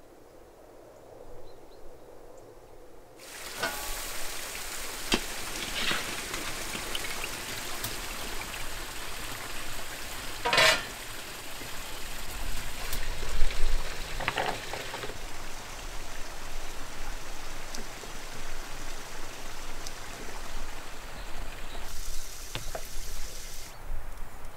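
Food sizzling and frying in a pan over the fire, starting suddenly about three seconds in, with crackles and a few brief louder knocks.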